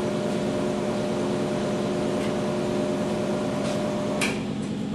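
Ammco bench brake lathe running steadily, its motor and spindle turning a mounted brake rotor with a steady hum and whine. There is a sharp click near the end, after which the whine drops away.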